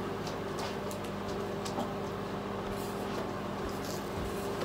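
A steady low mechanical hum in a room, with a few faint clicks.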